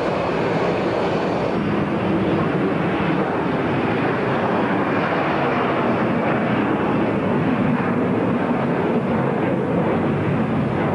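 Jet airliner engines at climb power, mostly a Tupolev Tu-154's three rear-mounted low-bypass turbofans, heard as a steady dense rush of noise. The highest hiss thins slightly about a second and a half in.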